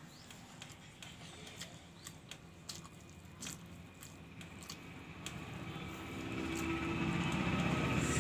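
Hand eating: fingers squishing and mixing rice and curry on a steel plate, with small clicks and chewing. From about six seconds in, a passing vehicle's engine hum rises and becomes the loudest sound near the end.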